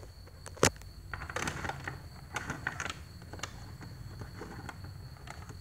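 Clicks and scrapes of cables being handled and a Dell laptop's round power-cord plug being pushed into the laptop's charging socket. One sharp click about half a second in is the loudest, with a cluster of smaller clicks and scrapes over the next few seconds.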